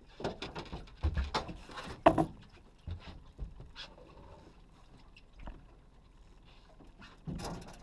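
Knocks and clatter of fishing gear against an aluminium boat's hull and deck: a quick run of sharp bangs in the first two seconds or so, the loudest about two seconds in, then a few scattered knocks and a short clatter near the end.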